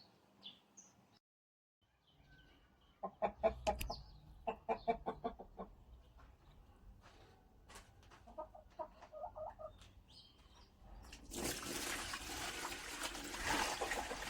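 Chickens clucking in quick runs of short calls. Near the end a steady rushing noise starts and takes over.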